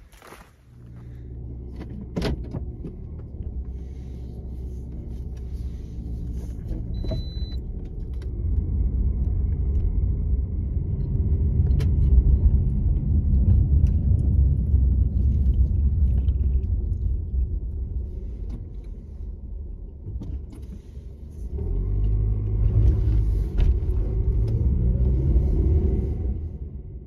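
Car engine and road rumble heard from inside the cabin as the car drives off, louder once it gets going about eight seconds in and swelling again near the end as it speeds up. A sharp knock about two seconds in and a brief high beep around seven seconds in.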